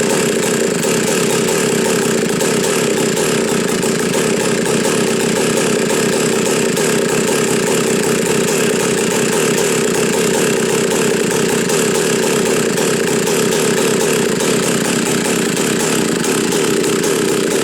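Vintage McCulloch Super Pro 125 chainsaw's two-stroke engine running steadily at an even pitch.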